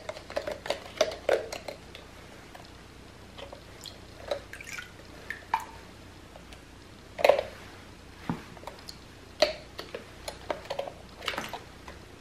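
Scattered small clicks, taps and water drips from a homemade paddle boat, a plastic bottle with plastic forks and a rubber-band-wound paper paddle, being handled over a tub of water and set in to run. A few louder splashy knocks come about seven, nine and eleven seconds in.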